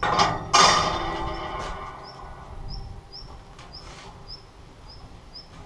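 A wire rack clanks twice against the steel grating and pipes, the metal ringing out and dying away over a second or so. After that a bird chirps over and over, a short high note about twice a second.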